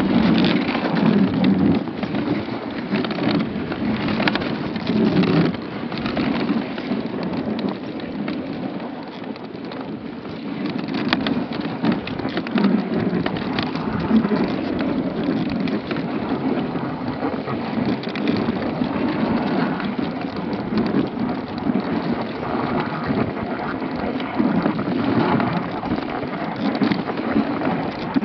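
Dogsled's runners sliding over snow behind a husky team: a steady, rough scraping noise that swells and eases, with a few sharp knocks from the sled.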